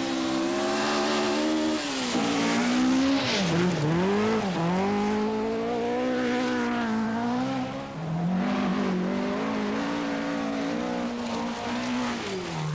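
Ford Escort Mk2 rally car's engine revving hard on a gravel stage. Its pitch drops sharply a few times and climbs again, with gravel hiss underneath.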